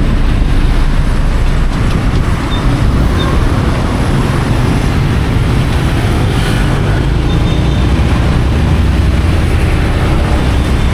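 Steady road noise of a ride through heavy rush-hour city traffic: engines and tyres with a constant low rumble.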